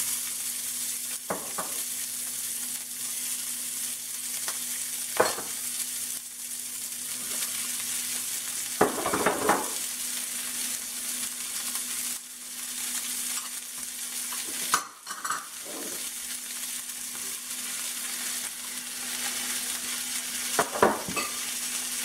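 Vegetables frying in hot oil in a stainless steel skillet, a steady sizzle, as handfuls of sliced vegetables are tossed into the pan. Several sharp knocks and clicks against the pan come a few seconds apart.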